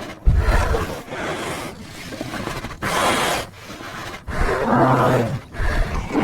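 Marsican brown bear growling and roaring in a series of short, separate calls, a deeper pitched roar about five seconds in.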